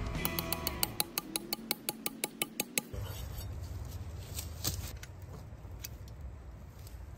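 Rapid, even series of sharp metallic clicks, about seven a second, stopping after nearly three seconds, followed by low rustling.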